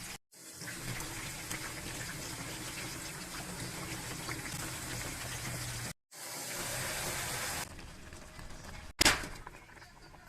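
Water running steadily from a kitchen tap, heard in several short cut-together stretches, with one sharp loud clack near the end.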